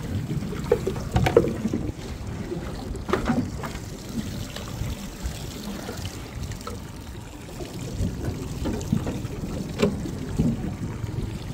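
Water sloshing against a small boat's hull, with wind on the microphone, and a few short knocks from tackle being handled about a second in, around three seconds and near the end.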